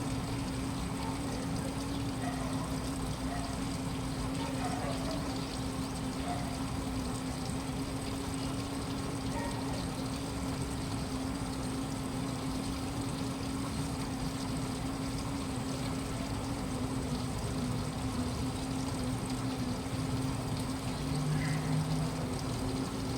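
Washing machine running, a steady motor hum with water pouring and moving inside the drum. A short, slightly louder lower tone comes in near the end.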